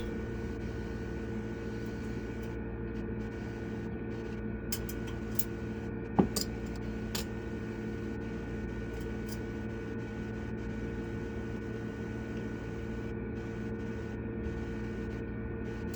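Steady electrical hum with a constant high tone, broken by a few faint light clicks and one sharper knock about six seconds in, from metal parts and tools being handled while a valve spring is compressed on a cylinder head.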